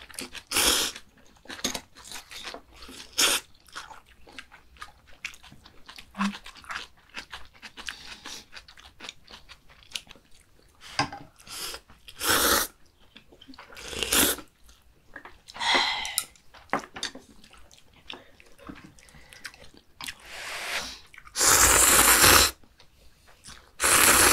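People slurping instant ramen noodles and chewing, in a string of short slurps with quieter chewing between; the longest, loudest slurps come near the end.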